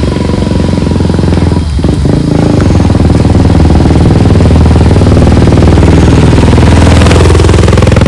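Small motorcycle engine running close by with a rapid, even pulse, labouring up a steep slope and growing louder about three seconds in.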